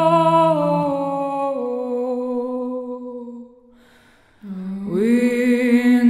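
Wordless, meditative singing: long held notes that slide from one pitch to the next. The phrase fades away a little past the middle, there is a brief pause, and a new note slides up into place near the end.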